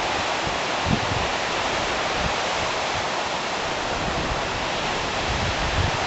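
Storm-force wind blowing through conifer trees as a loud, steady hiss, with gusts buffeting the microphone in short low thumps about a second in and again near the end.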